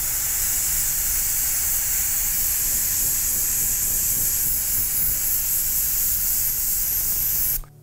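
Airbrush spraying acrylic paint: a steady hiss of air that cuts off sharply near the end.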